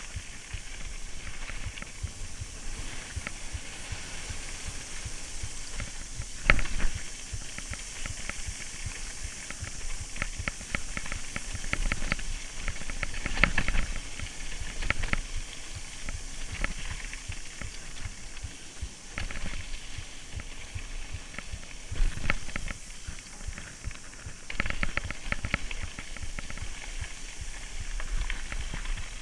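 Mountain bike riding fast down a dirt trail: steady hiss of tyres and rushing air with a low rumble, broken by irregular rattles and knocks of the bike over bumps, with several louder clatters.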